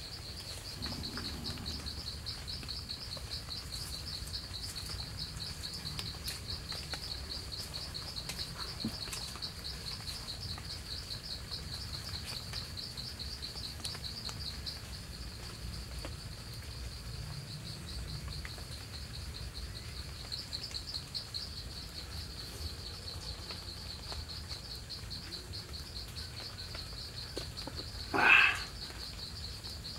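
Insects trilling steadily with a fast, even, high-pitched pulse. About two seconds before the end a brief, much louder sound stands out.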